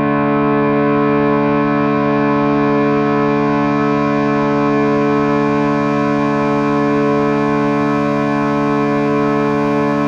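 Ambient meditation music tuned to 432 Hz: a sustained drone chord of steady held tones that slowly grows brighter.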